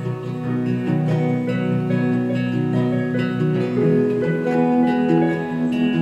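Acoustic guitar music, plucked and strummed notes ringing on in a steady run.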